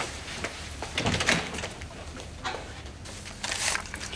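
A door shutting with a couple of knocks about a second in, then paper rustling as banknotes and bank statements are handled near the end.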